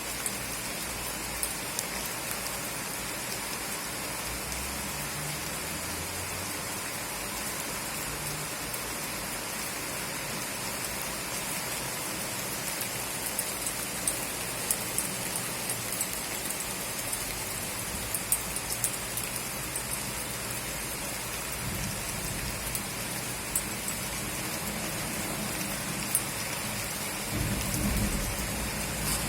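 Steady heavy rain, with sharp drop ticks spattering on a hard surface. A low rumble of thunder builds near the end.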